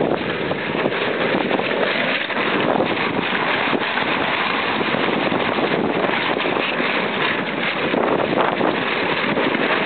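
Steady wind noise buffeting the microphone of a camera on the deck of a sailing yacht under way: an even, unbroken rush.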